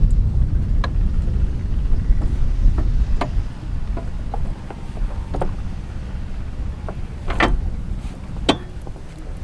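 Low wind rumble on the microphone, easing after about three seconds, with scattered clinks and knocks of anchor chain and deck fittings being handled at a sailboat's bow; two sharper knocks come near the end.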